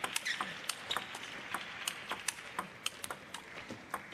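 Table tennis rally: the celluloid-type plastic ball clicking sharply off the rackets and bouncing on the table, roughly three clicks a second.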